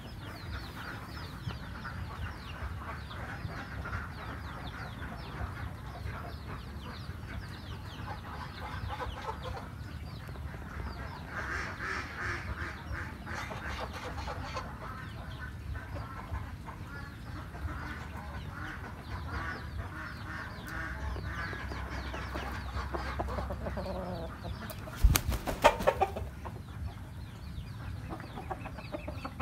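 Chickens clucking steadily, with a brief loud clatter about 25 seconds in.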